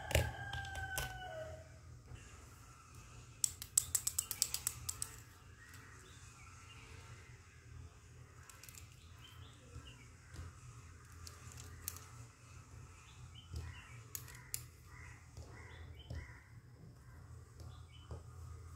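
Plastic toy kitchen pieces clicking and clattering as they are handled and set down beside a plastic tray, with a quick run of clicks about four seconds in and lighter scattered taps after. A rooster crows briefly at the start, its pitch falling at the end.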